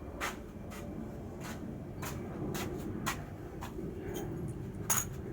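A run of light, irregular clicks and taps, about a dozen, the sharpest near the end, over a steady low hum.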